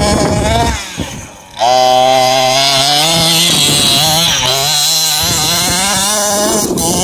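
Engine of a 1/5-scale RC buggy, a small two-stroke petrol engine, running hard. It rises, drops away briefly about a second in, then comes back and holds high revs with a buzzing note that climbs slowly.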